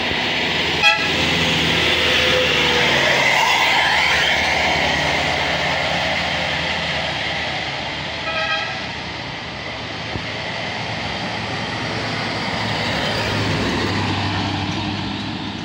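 Medium tour bus passing close and driving away, its engine and tyres running loudest in the first few seconds and then fading. Short horn toots sound about a second in and again about eight seconds in. Near the end a low rumble builds as another vehicle approaches.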